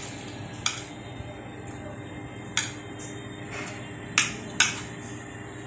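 Dishes and utensils clinking on a dining table: about five short, sharp clinks spread over a few seconds, each with a brief ring.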